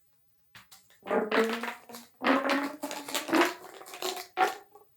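Plastic corrugated plumbing pipe squeezed and stretched like an accordion: about five crackling pulls, each carrying a low honking tone.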